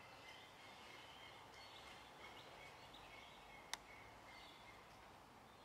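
Near silence: quiet room tone with faint, high bird chirps and one sharp click about two-thirds of the way through.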